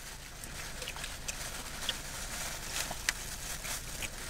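People eating: scattered small clicks and crackles of chewing and of a wrapped burrito being handled, over a steady hiss.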